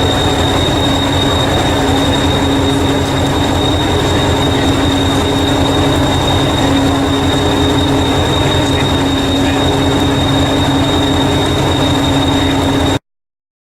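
A train running: a loud, steady rumble with a constant hum and a thin high-pitched whine held throughout. It cuts off abruptly near the end.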